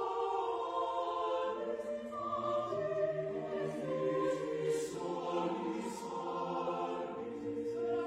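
Mixed choir singing a sustained chordal passage, with lower voices joining about two seconds in.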